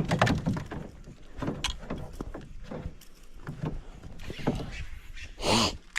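Irregular knocks and bumps of gear being moved about in a small fishing boat. A brief loud rush of noise comes near the end.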